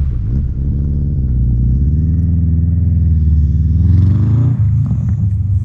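Motorcycle engine running, its note climbing through the middle and dropping away sharply a little over four seconds in.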